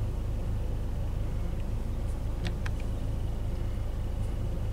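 Car engine running, heard from inside the car as a steady low rumble, with two faint clicks about two and a half seconds in.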